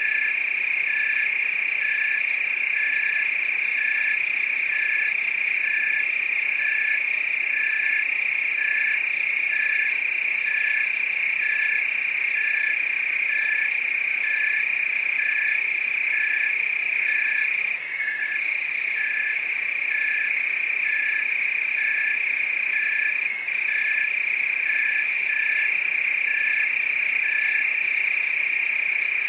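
Crickets and frogs calling together: a continuous high, steady trill with a short call repeated about once a second, which stops near the end.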